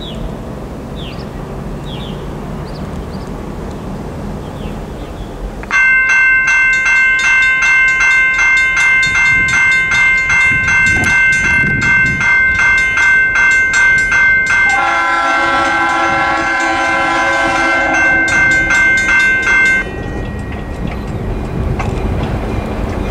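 Railroad crossing warning bells start suddenly about six seconds in, ringing in rapid, even strokes. They are a General Signals Type 2 electronic bell and a Safetran mechanical bell. About fifteen seconds in the ringing changes and lower tones join, fitting the old mechanical bell that starts late and struggles as the gates lower, which the uploader takes as a sign that it is dying. The bells stop abruptly about twenty seconds in, with the gates down.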